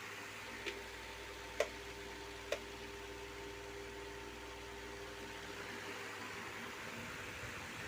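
Table fan running after its shaft repair, giving a steady hiss with a faint hum. Three sharp clicks come about a second apart early on, and the low hum fades out near the end.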